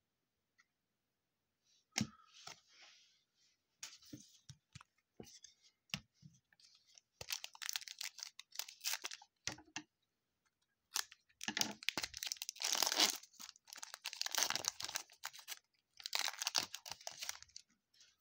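Foil wrapper of a 2020 Panini Prestige football card pack being torn open and crinkled, in three bursts of rustling, after a few light clicks of cards being handled.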